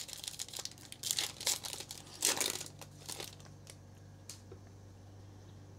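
Plastic wrapper of a Panini Prizm trading card pack crinkling and tearing as it is ripped open by hand, in bursts over the first three seconds or so and loudest a little past two seconds in. After that it goes much quieter.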